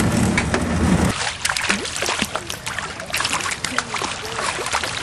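A low rumble that cuts off about a second in, then water splashing and dribbling as a hooked fish thrashes at the surface.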